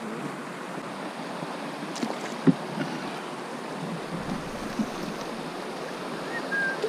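River water rushing over a shallow riffle beside an inflatable boat, a steady hiss, with a couple of light knocks a couple of seconds in and a few short high notes near the end.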